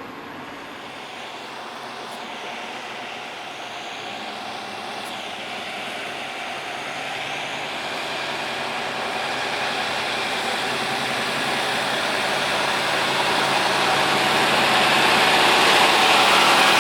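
Heavy engine running with rumbling noise that grows steadily louder, by about 20 dB, as it draws closer or works harder.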